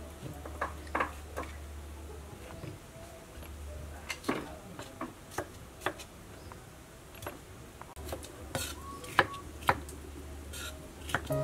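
Knife slicing vegetables on a wooden cutting board: irregular sharp taps as the blade hits the board, the loudest about nine seconds in, over a low steady hum.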